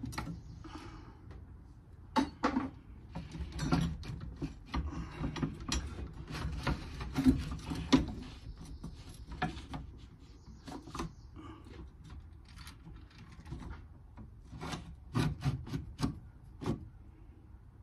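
Hand tools at work on the van's drive shaft: irregular clicks and knocks with some scraping, busier in the first half and sparser near the end.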